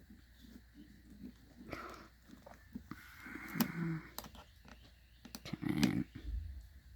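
Small clicks, taps and scrapes of a precision screwdriver and tiny screw being driven back into a smartphone's frame, scattered and light.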